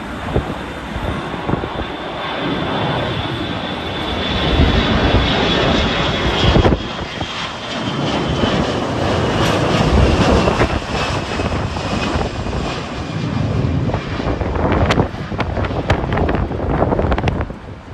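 Jet airliner passing by: a loud engine rush that builds, peaks in the middle and fades near the end, with a high engine whine that slowly falls in pitch in the first half. Wind buffets the microphone throughout.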